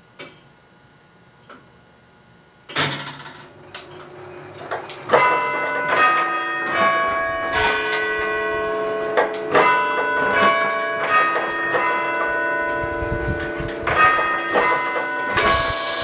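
A tower clock's chiming mechanism: a few faint ticks, a sudden loud mechanical clunk about three seconds in, then from about five seconds in its four tower bells, weighing 400 to 1,800 pounds, are struck one after another in a chime sequence, their ringing tones at several pitches overlapping.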